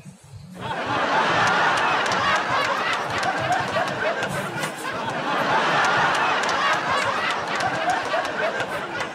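Canned audience laughter, a laugh track of many people laughing together, starting suddenly about half a second in and easing off near the end.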